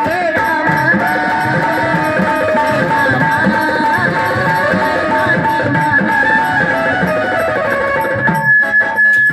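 Live Maharashtrian folk dance music: a pair of sambal drums beats a quick, steady rhythm under a held melodic line. Near the end the accompaniment thins and single drum strokes stand out.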